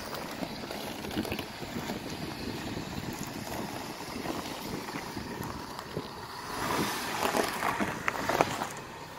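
A car driving slowly over a rough, stony dirt road, with wind on the microphone. The sound grows louder about two-thirds of the way through.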